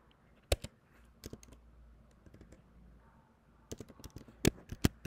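Computer keyboard typing: scattered keystrokes, then a quicker run of them near the end with a couple of louder strikes.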